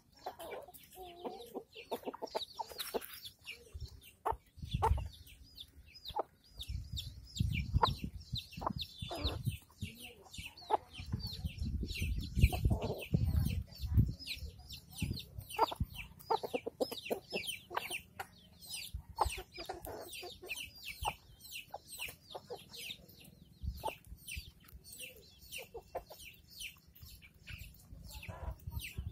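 Domestic chickens feeding: a hen clucking while her chicks keep up a stream of short, high peeps. A low rumble comes in midway and fades again.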